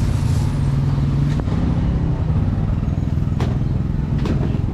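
A motor vehicle engine running close by in street traffic, a steady low hum, with three short sharp clicks.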